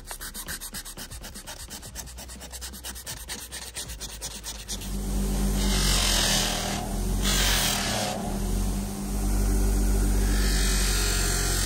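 Sandpaper rubbed back and forth along a wooden hammer handle in rapid, even strokes. About five seconds in, a bench grinder fitted with a sanding wheel is heard running with a steady hum, and the handle is pressed against the wheel in two short bursts of grinding.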